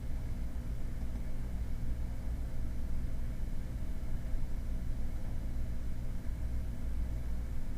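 Steady low hum with a few faint steady tones and light background hiss, unchanging throughout.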